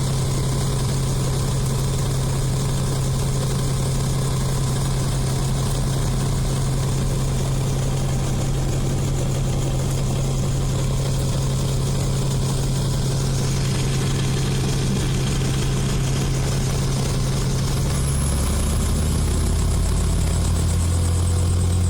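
Helicopter engine and rotor noise heard from inside the cabin: a loud, steady low drone. About 18 seconds in, the drone drops to a lower pitch and a faint high whine comes in.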